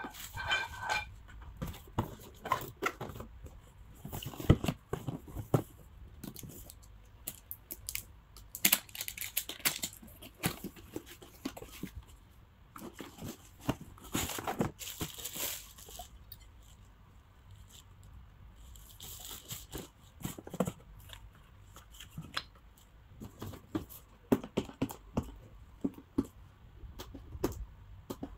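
Cardboard packaging being opened and handled, with plastic wrap crinkling and tearing, and irregular knocks and scrapes of boxes and a pan being moved.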